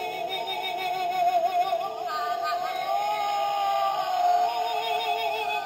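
Toy ghost ornament's small sound chip and speaker playing an electronic ghostly 'oooo' wail: a warbling tone with a constant wobble that drifts up and down in pitch.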